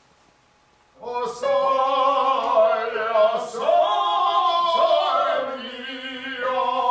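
A man singing long, sustained operatic tones in a voice lesson, starting about a second in.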